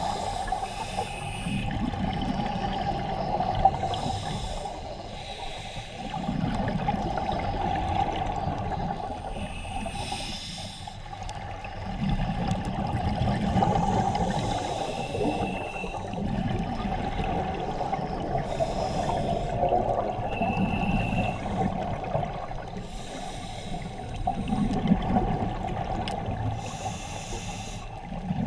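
Scuba diver breathing through a regulator underwater: a hiss on each inhale and a bubbling rumble on each exhale, in slow breaths every few seconds, over a steady underwater hiss.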